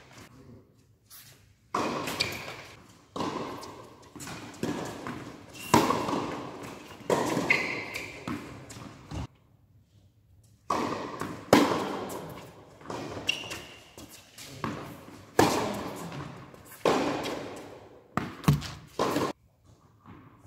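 Tennis rallies in a large indoor hall: racket strikes on the ball and its bounces on the court, each a sharp knock with a ringing echo, coming roughly every second and a half, with a short lull about nine seconds in between points.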